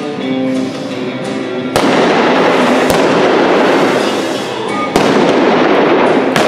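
Four sharp gunshots, each followed by a long echo, with music playing underneath. They fit blank-loaded revolvers fired at balloon targets from a galloping horse in cowboy mounted shooting.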